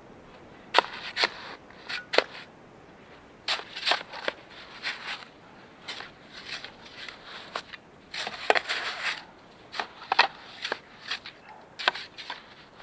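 Shovel digging into deep, dry snow: a series of sharp crunches and scrapes at irregular intervals as the blade cuts in and lifts the snow away.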